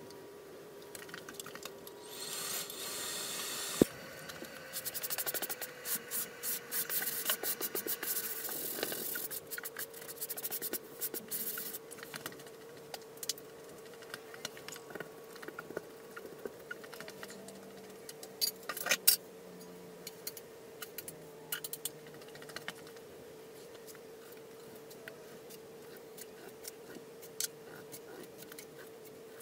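Drywall knife and mud pan being worked, scraping and rubbing, with a hissing scrape about two seconds in. Then a stretch of quick clicks and taps thins out to scattered ticks over a steady hum.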